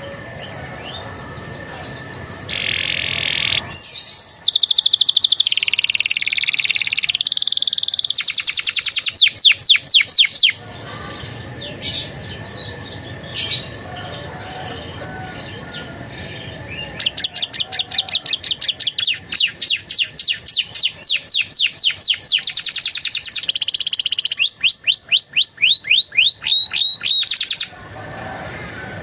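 Domestic canary singing, its song filled in with phrases learned from ciblek and prenjak. It sings two long bursts of high, fast trills and rapidly repeated notes, separated by a pause with a couple of single chirps.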